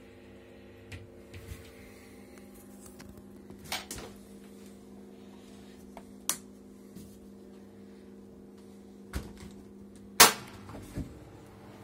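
Homemade egg incubator running with a steady electrical hum of several even tones. Scattered sharp clicks and knocks sound over it, the loudest about ten seconds in.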